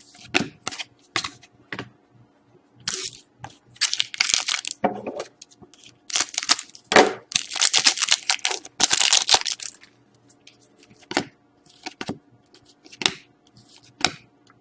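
Trading card pack wrappers rustling and tearing in several short bursts, with sharp clicks in between from cards being handled.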